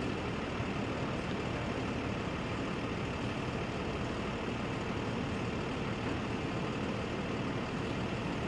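A heavy engine idling with a steady low rumble.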